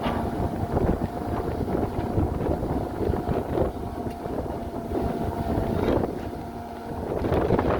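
Heavy diesel machinery running, with a steady whine on top that drops out about six seconds in, and wind buffeting the microphone.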